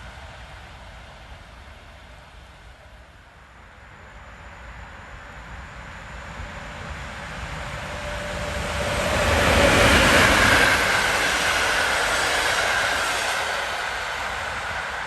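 EP07 electric locomotive hauling a passenger train, approaching and passing on the rails. The rumble of wheels on track builds from about four seconds in and is loudest about ten seconds in. It then slowly eases off as the carriages roll by.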